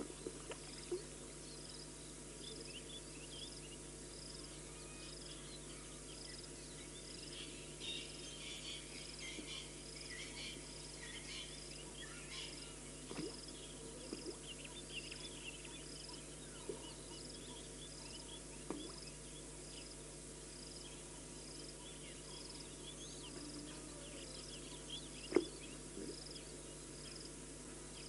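Savanna waterhole ambience: an insect calls in an even, repeating high chirp, with scattered short bird chirps and a few sharp knocks, the loudest near the end.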